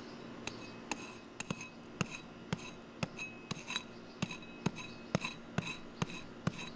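Small metal hoe chopping into dry, hard clay soil: a run of sharp strikes, about two a second, each with a short metallic ring.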